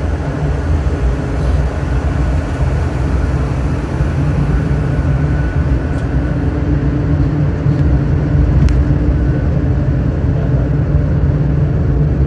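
Funicular cable car running on its rails down the inclined shaft: a steady low rumble with a faint hum over it, and a few light clicks in the second half.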